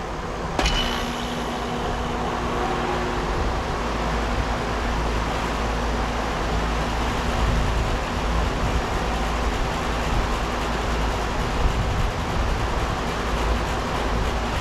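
1995 Payne Teardrop 5-ton central air conditioner starting up: a sharp click about half a second in as it kicks on, then its Copeland scroll compressor and condenser fan run with a steady hum.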